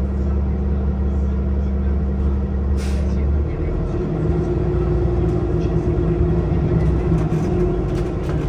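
Cabin sound of a 2022 Nova Bus LFS city bus with its Cummins L9 diesel engine running. There is a short hiss of air nearly three seconds in. At about three and a half seconds the engine's steady note changes to a new, somewhat higher set of tones.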